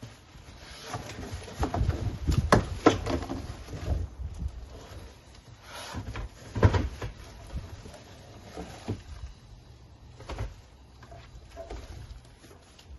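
Cardboard box and packaging being handled and unpacked: irregular knocks, scrapes and rustles, busiest in the first few seconds with a sharper knock about six and a half seconds in.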